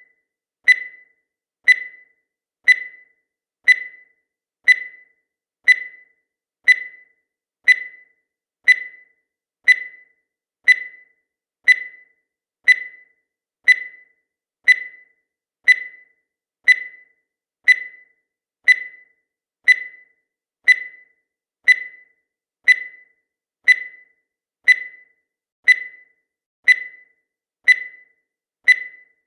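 Countdown timer sound effect: a short, sharp tick repeating once a second, each one quickly dying away, marking off the seconds.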